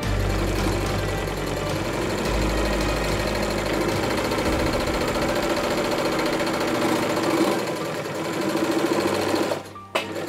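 New Home Janome 535 heavy-duty sewing machine running steadily, sewing a zigzag stitch through a folded strip of heavy fabric. It stops suddenly near the end, followed by a few sharp clicks.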